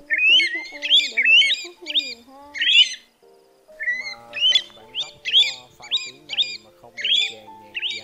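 Pacific golden plover calls: short whistled notes that rise and fall, repeated about twice a second with a brief pause a little before halfway. Background music with sustained chords plays underneath.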